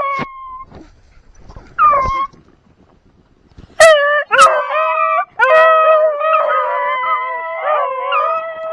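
A pack of beagles baying as they trail a rabbit's scent. There are single short yelps at the start and again about two seconds in, then from about four seconds several hounds bay together in long, overlapping howls.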